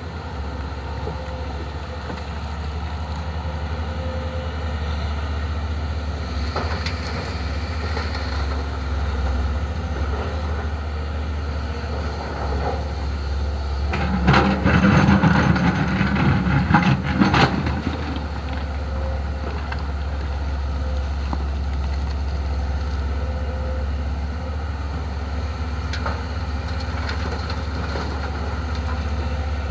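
Hyundai HX220S hydraulic excavator's diesel engine running steadily with a low drone. About halfway through, a louder stretch of a few seconds of clattering and scraping as the machine works the soil.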